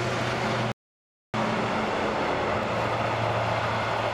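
Train passing close by: a loud, steady running noise with a low hum underneath. About a second in, the sound cuts out completely for about half a second, then returns as before.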